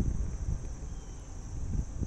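Wind buffeting the microphone in an uneven low rumble, with a steady high insect drone in the background.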